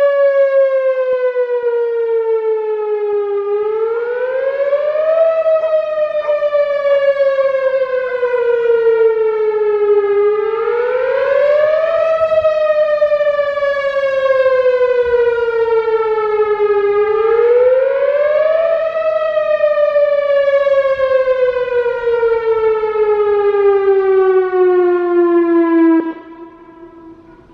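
Whelen Vortex R4 rotating electronic outdoor warning siren sounding a full wail test tone. The pitch rises quickly and falls slowly, over and over about every seven seconds. The tone cuts off abruptly near the end, leaving only a faint low remnant.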